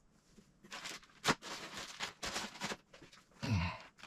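Plastic kit parts bags crinkling and rustling as they are handled, in a run of short bursts with a sharp click about a second in.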